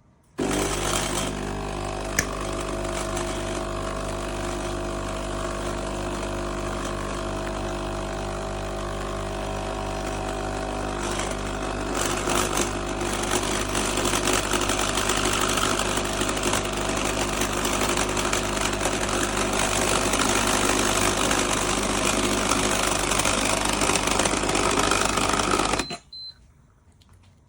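KEEPLUCK pod coffee machine's pump buzzing steadily as it brews, starting suddenly, getting louder about halfway through, and cutting off suddenly near the end.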